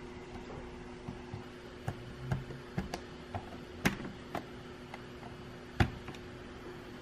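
Keystrokes on a Mattel Aquarius keyboard: a dozen or so irregular clicks as a short command is typed, with two louder key presses, about four seconds in and near the end, the last one entering the command. A steady low hum runs underneath.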